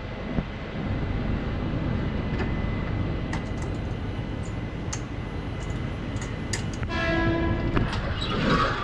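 Steady train background noise with a few sharp clicks, then a locomotive horn sounds about seven seconds in, one held multi-tone note lasting about two seconds.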